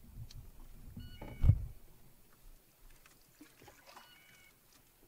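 Canoe paddling on calm water: paddle strokes and a knock against the hull about one and a half seconds in, then quieter gliding. Two brief faint high-pitched sounds come about a second in and near four seconds in.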